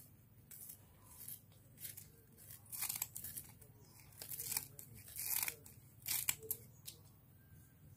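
Scissors snipping through fresh banana leaf: a series of short, uneven cuts, several close together in the middle.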